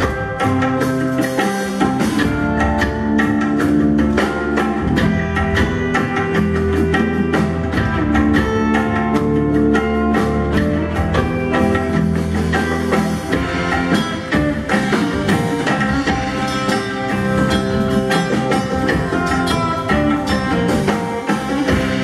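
Live band music: electric guitar and bass guitar playing over drums and fast percussion strikes.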